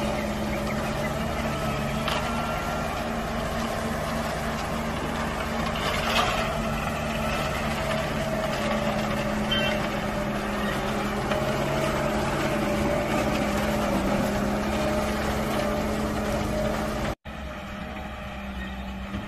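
Diesel engine of an Ajax Argo 2000 self-loading concrete mixer running steadily under load as the machine moves about. Near the end the sound cuts out for an instant and resumes quieter.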